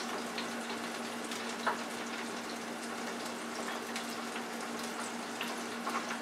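Battered mushrooms frying in a deep fryer of hot oil: a steady crackling hiss with scattered small pops, over a steady low hum.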